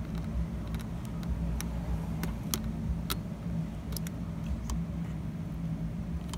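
Scattered small sharp clicks and taps as wire ends are worked into the plug-in terminal blocks on an entry-system circuit board, over a steady low hum.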